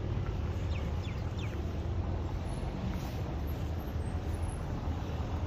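Steady low rumble of wind buffeting the microphone outdoors, with a few faint high chirps about a second in.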